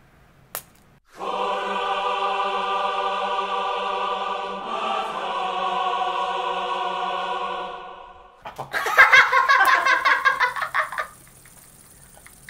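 A choral 'aah' sound effect holds one steady chord for about seven seconds. It gives way to a burst of excited laughter.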